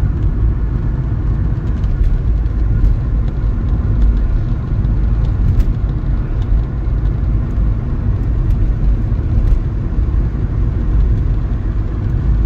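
Steady road and engine rumble heard inside a small Ford's cabin while driving, with tyre noise from new winter tyres on a wet road.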